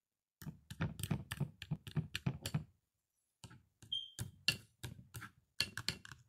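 Hard plastic toy pizza slices and a plastic toy cutter clicking and knocking against a plastic bin lid: a quick run of clicks, a short pause about three seconds in, then more scattered clicks.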